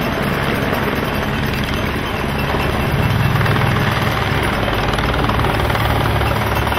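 Race motorcycles and support cars driving past close by, engines running steadily, with a motorcycle going by loudest about three seconds in.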